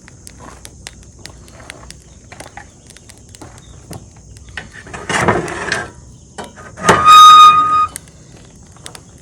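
Footsteps and light clicks over a steady high insect drone. About five seconds in comes a loud rustling noise of under a second, then a loud, steady horn-like beep lasting about a second.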